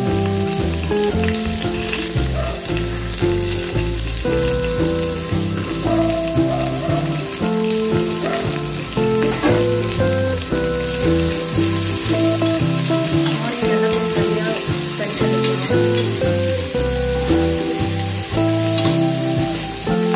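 Chopped onions sizzling steadily in hot oil in an aluminium pressure cooker as they fry, with a background music track throughout.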